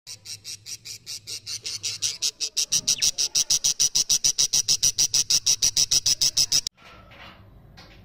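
Budgerigar chicks begging: a rapid, even run of high cheeps, about seven a second, growing louder over the first few seconds and cutting off suddenly near the end.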